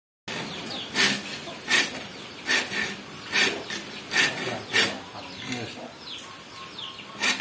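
A metal file rasping across the teeth of a dull, rusty hand saw to sharpen them, in a steady series of short strokes about one every three-quarters of a second. The strokes pause for about two seconds and resume near the end.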